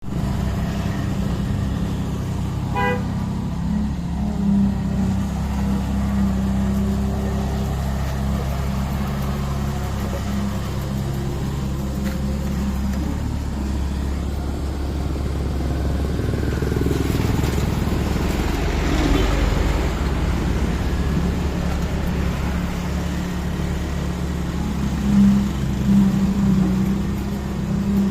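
Road roller's diesel engine running steadily with a low drone while compacting hot asphalt. A short horn toot comes about three seconds in.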